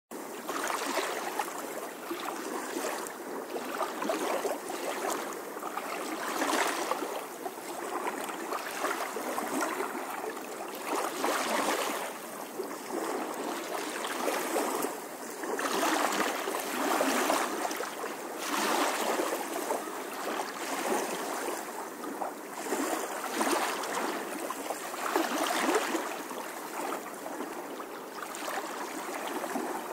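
Swimming-pool water rushing and sloshing around the camera, swelling and fading every second or two.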